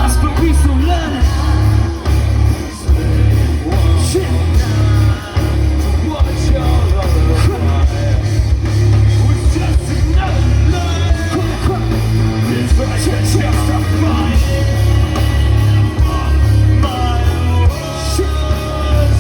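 Live rock band playing loud, with a heavy, pulsing bass and drum low end and vocals over it.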